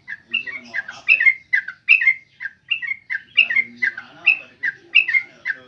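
A caged bird calling over and over in short, quick downward-slurred notes, mostly in pairs, about one pair every second.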